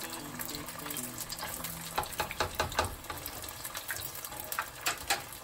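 Beer-battered fish deep-frying in a pot of hot oil: a steady sizzle and bubbling, thick with small crackles.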